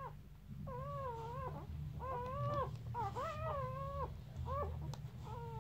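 Newborn puppy crying: a string of about five high, thin whining squeals, each about half a second long and arching up then down in pitch.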